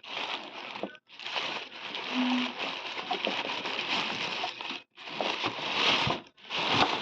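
Gift wrapping being opened: packaging crinkling and rustling in long stretches, broken by a few short pauses.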